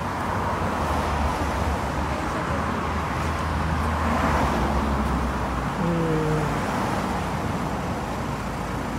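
Steady city street traffic noise, with a low vehicle engine rumble that weakens about six seconds in.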